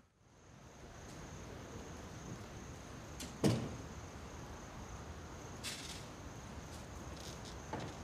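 Faint night ambience with crickets trilling steadily, a door shutting with a single thud about three and a half seconds in, and a brief rustle a little after.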